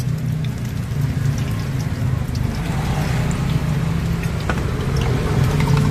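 Egg frying in a wok of hot oil, sizzling with scattered crackles, over a steady low hum.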